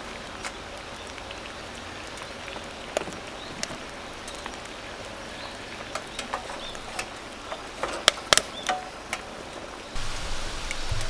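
Firewood burning in a small tabletop wood stove: a steady hiss with irregular sharp crackles and pops, a few louder pops about eight seconds in. A low rumble joins near the end.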